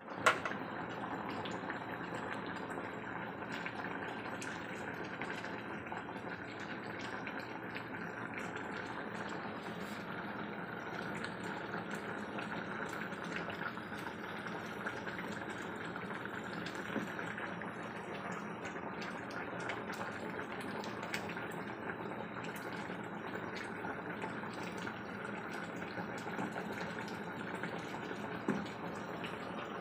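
Chicken curry in coconut milk boiling hard in a metal pot, a steady bubbling, with a sharp knock right at the start and another near the end.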